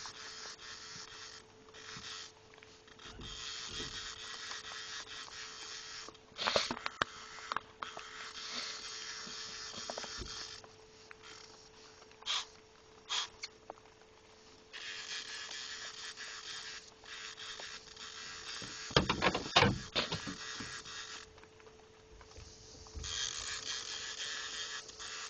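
A fishing reel cranked in stretches of several seconds with short pauses between them, a steady rasping whir as line is wound in during a fight with a big striped bass. A steady hum runs underneath, and a few knocks stand out, the loudest about six seconds in and again near the twenty-second mark.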